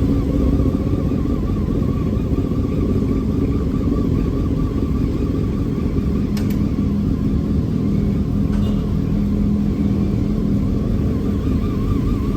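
Motorcycle running steadily on the move, a continuous low rumble of engine and road noise.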